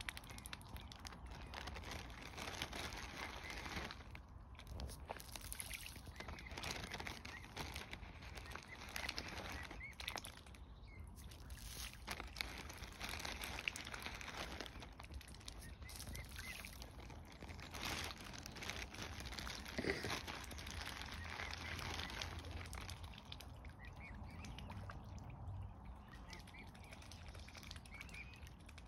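Mute swans and their cygnets dabbling and feeding at the water's edge: faint scattered splashing and bill-in-water sounds, with a few short bird calls.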